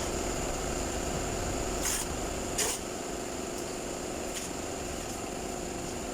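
Steady mechanical hum with a constant high tone, broken by two short hisses about two seconds and two and a half seconds in.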